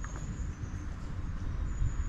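Outdoor wind rumble on the microphone, low and uneven, with a faint high-pitched chirring that comes and goes.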